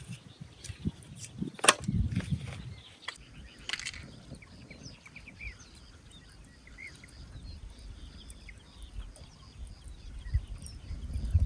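A sharp knock with a low thump about two seconds in, and a few lighter clicks soon after. Faint bird chirps follow.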